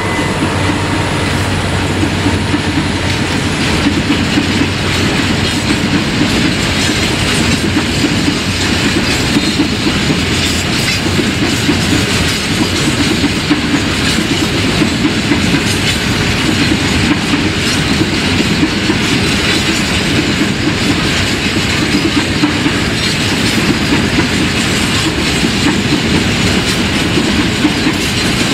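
A long rake of empty grain hopper wagons rolling past, their wheels running over the rails with a steady rumble.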